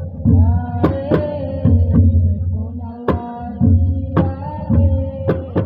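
Traditional drum music: deep drum beats and sharp hand-drum slaps in a steady rhythm, under a held melody line that slides in pitch.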